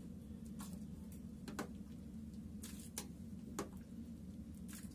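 A steel ladle scraping and knocking against a pressure cooker and bowl as thick pea-and-potato chola is scooped out: a handful of faint, irregular clinks over a steady low hum.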